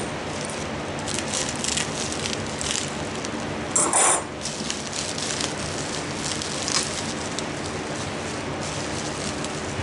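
Hatching eggs and their packaging being handled: light clicks and rustling, with a louder clatter about four seconds in, over a steady low hum.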